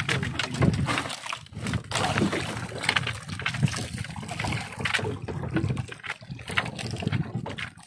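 Water sloshing and lapping against a small wooden fishing boat's hull, with irregular light knocks and splashes as a longline of baited hooks is paid out by hand over the side.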